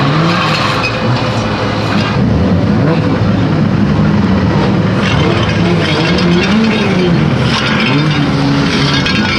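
Crash-damaged Rover P4 banger's engine running, its revs rising and falling unevenly as the car moves, under a crackly noise.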